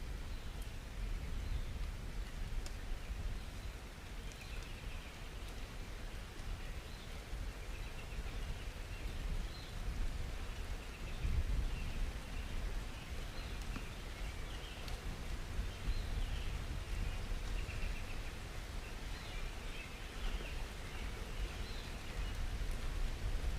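Outdoor nature ambience: a steady low rumble with faint, scattered chirping throughout.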